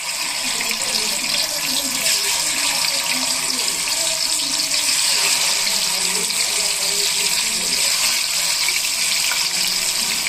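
Fish frying in hot oil, a steady high sizzle that holds at an even level.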